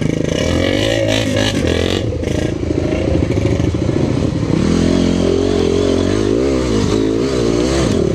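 Dirt bike engine running loud, its revs rising and falling repeatedly as the bike picks its way through mud and tall grass. There are a few knocks and rattles in the first couple of seconds.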